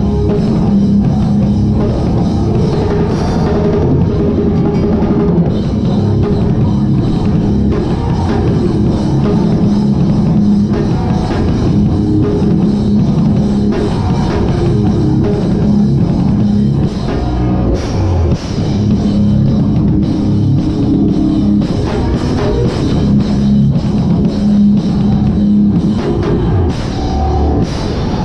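Hardcore band playing live, heard from behind the drum kit: fast, loud drums and crashing cymbals over heavy distorted guitar and bass, with a short break a little past halfway.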